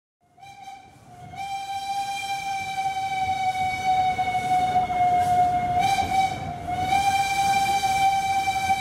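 Locomotive horn sounding one long continuous blast over the low rumble of a train. It starts faintly about half a second in, swells to full strength, and steps slightly in pitch a couple of times.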